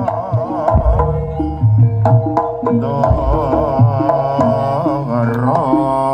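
Live Javanese jaranan gamelan music: kendang hand drums beating steadily under a wavering, vibrato melody line, with a deep sustained low tone beneath.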